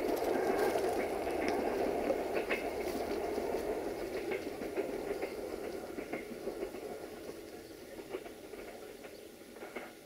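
Passenger train coaches rolling away over the rails, their wheels clicking over the rail joints. The rumble fades steadily as the train draws off.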